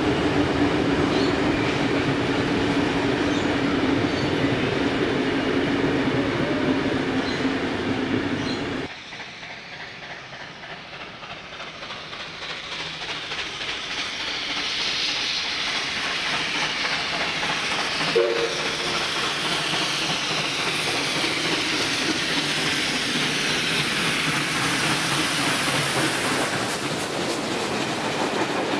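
Heritage train hauled by NSWGR 59 class steam locomotive 5917, with its carriages rolling past and a steady low hum. About a third of the way in the sound drops suddenly, then builds again as the locomotive approaches and passes, followed by its wooden-bodied carriages rolling by, with a brief tone partway through.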